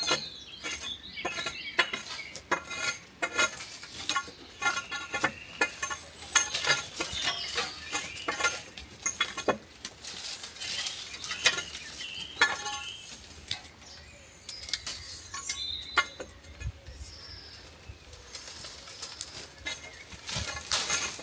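Loose pieces of scrap metal clanking and clinking as they are pulled out and handled: many irregular knocks, several followed by a short metallic ring.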